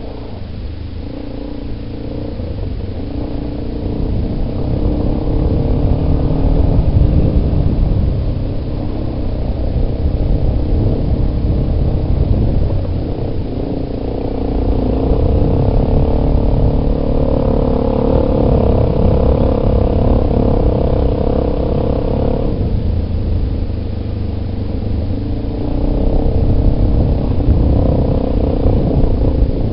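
Yamaha Big Bear ATV engine running while ridden, its pitch rising and falling as the throttle is opened and eased. The throttle comes off abruptly about two-thirds of the way through, then picks up again near the end, with low rumble underneath.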